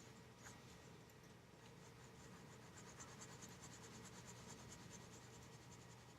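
Faint graphite pencil scratching on paper in quick, repeated short strokes, densest in the middle: shading a drawing.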